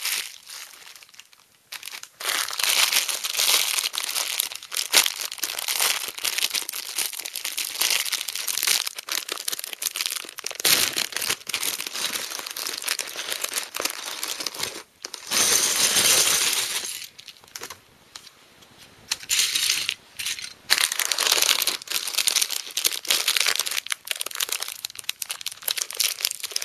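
Thin clear plastic LEGO parts bags crinkling as they are handled and pulled at to open them. The crinkling comes in irregular stretches with short pauses and is loudest a little past halfway.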